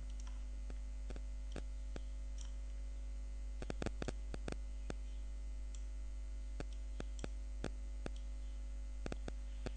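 Computer mouse clicking: sharp single clicks scattered throughout, with a quick run of them about four seconds in, over a steady electrical mains hum.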